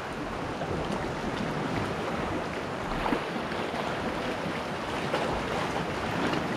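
Steady wash of sea water moving against shoreline rocks.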